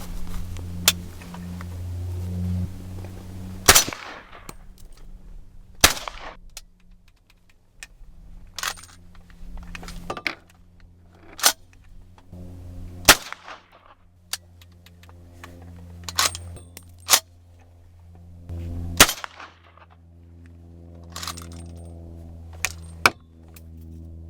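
Ruger Mini 14 in 300 Blackout firing Gemtech 187 grain subsonic rounds: several single shots a few seconds apart, each followed by a short echo, with smaller sharp metallic clacks between them. The subsonic load cycles the action only some of the time.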